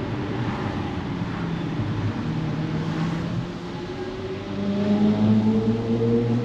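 Pagani Zonda F's Mercedes-AMG V12 running at low speed, then accelerating about four and a half seconds in, getting louder with a slight rise in pitch.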